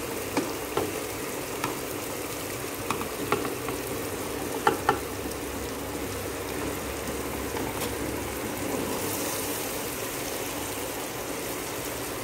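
Tomato-onion masala sizzling steadily in a steel pot while chopped okra is tipped in from a dish, with scattered light knocks as the pieces drop and the dish touches the pot.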